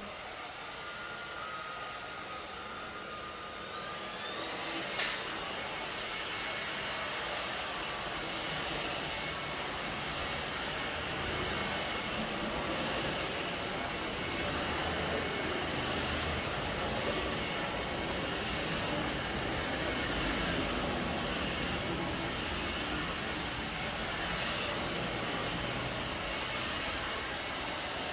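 Belife cordless stick vacuum's brushless motor running while vacuuming carpet, a steady whirring hiss of suction. About four seconds in, with a click, it turns louder and hissier, then holds steady with small swells as the head is pushed back and forth.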